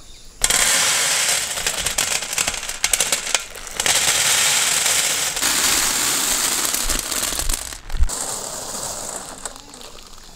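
Dry elbow macaroni pouring out of plastic packets onto a heap: a dense rattle of the pasta pieces that starts about half a second in, runs in two pours, and dies down after a knock about eight seconds in.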